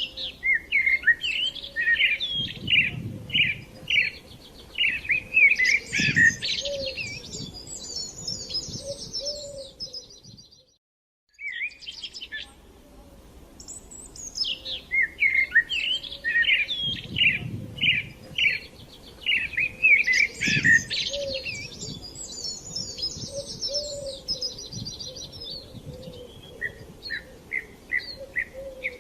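Songbird singing a long, varied phrase of quick chirps and rapid high trills. About ten seconds in the sound cuts out for a second, and then the same song passage plays again, as in a looped recording.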